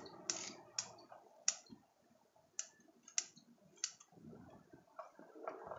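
Bonsai scissors snipping small twigs off a water jasmine (anting putri) bonsai: sharp, separate clicks, about seven cuts at uneven intervals in the first four seconds, then a few fainter snips near the end.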